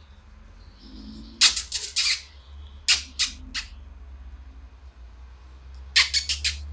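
American Staffordshire terrier puppies squeaking and yelping in quick high-pitched bursts, three flurries of several cries each, over a steady low hum.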